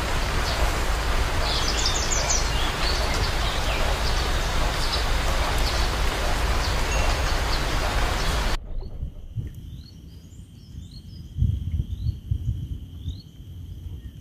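Wind rushing and buffeting over the microphone above choppy open water, with a few faint bird chirps about two seconds in. It cuts off suddenly after about eight and a half seconds to a quiet background with a steady high whine and a short rising chirp repeating a little faster than once a second.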